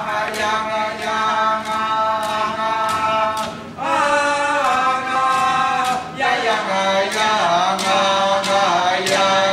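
Alaska Native drum song: several voices chanting in unison over a steady beat on large round hide frame drums struck with thin sticks.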